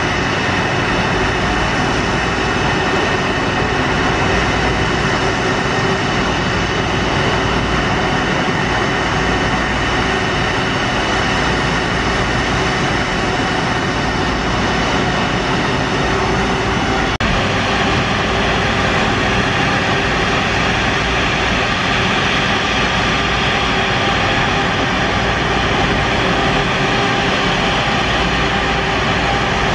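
Four jet engines of a Boeing 747 running steadily with a high whine as it rolls down the runway. About 17 seconds in the sound changes abruptly to the steady whine and rumble of a taxiing Airbus A330's jet engines.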